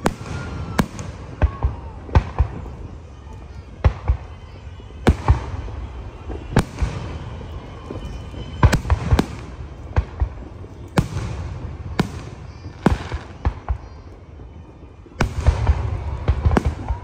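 Aerial firework shells bursting overhead in an irregular string of sharp bangs, often less than a second apart, with rumbling echo between them. The bangs come thickest in a burst of rumble near the end.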